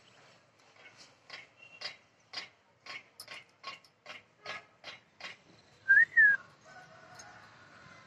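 A run of about a dozen short, sharp clicks or chirps, roughly two a second, then a loud two-note whistle about six seconds in, the first note rising and the second falling.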